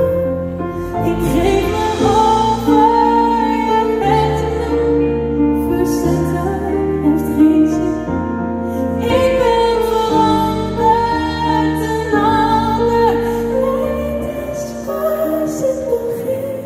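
A woman singing a slow Dutch ballad live into a microphone, with instrumental accompaniment, in a large arena.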